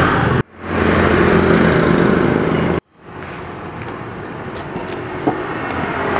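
Road traffic noise, mostly motorcycle engines, loud and close at first and cut off abruptly twice. After the second break the traffic is quieter and slowly grows louder, with a single sharp click near the end.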